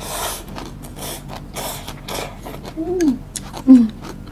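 Rice vermicelli noodles slurped from chopsticks, four quick slurps, then two short falling "mmm" hums of a person savouring the food, the second one the loudest.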